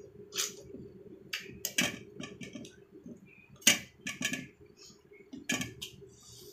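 Close-up eating sounds: a hand-eater chewing rice and chicken curry with wet mouth clicks and lip smacks, and fingers working the rice on a steel plate. The clicks come at irregular moments; the sharpest is about two-thirds of the way through.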